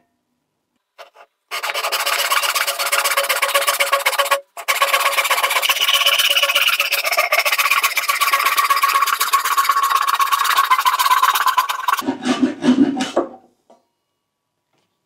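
Japanese pull saw cutting by hand through a wooden panel: a dense, continuous rasping of the teeth with a steady ringing tone, broken off briefly about four and a half seconds in, followed by a few duller knocks near the end.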